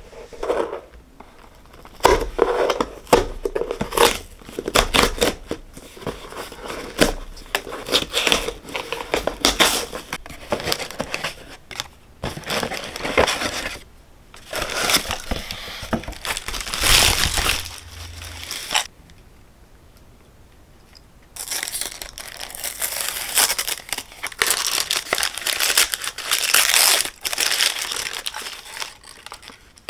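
Cardboard box flaps and honeycomb kraft packing paper rustling and crinkling as a parcel is unpacked by hand, then tissue paper crinkling as a small box is unwrapped. A quiet pause of about two seconds comes past the middle.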